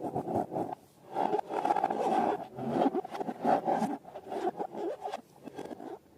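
Balloons and slime being handled: irregular rubbing and scraping in uneven bursts that stop just before six seconds in.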